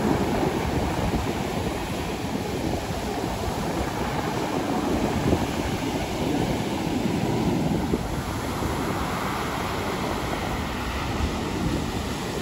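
Sea surf breaking on a sandy beach: a steady, continuous wash of waves.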